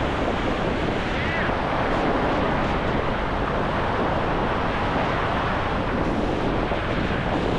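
Ocean surf breaking and washing over shallow sand, with steady wind rumbling on the microphone.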